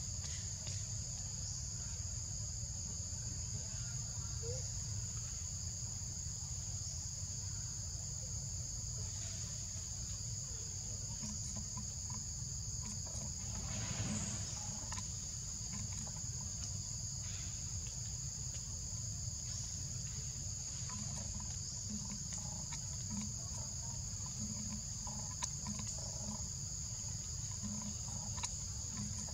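A steady, high-pitched insect chorus droning at two pitches, with a low rumble underneath and a short noise about halfway through.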